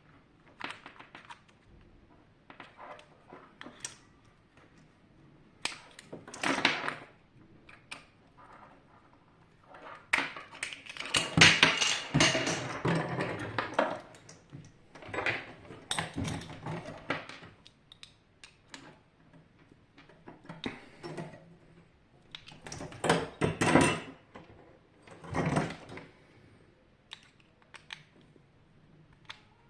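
Irregular clinks, clatters and scraping of metal parts and hand tools being handled while a water heater is taken apart, with the busiest stretches about a third of the way in and again past the middle.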